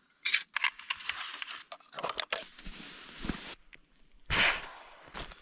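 Irregular rustling and crunching from something being handled or moved, with sharp crackles and a louder burst about four seconds in.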